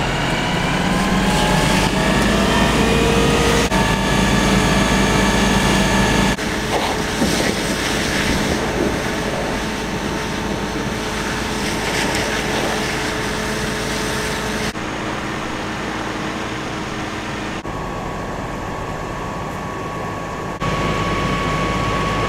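Fire engine running with its pump engaged: a steady engine hum whose whine rises over the first couple of seconds, under the hiss of a fire hose spraying water onto a burning car. The sound changes abruptly several times.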